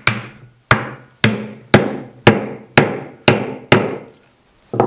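Repeated blows driving a fox-wedged tenon down into its blind mortise: sharp strikes on the wood at about two a second, each ringing briefly, eight in a row, then a short pause and one more near the end. The hidden wedges are being forced into the tenon's saw kerfs, spreading it tight inside the mortise.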